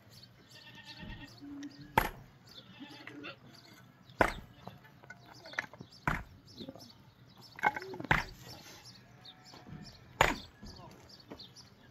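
Five sharp blows about two seconds apart, like steady chopping, with livestock bleating in between.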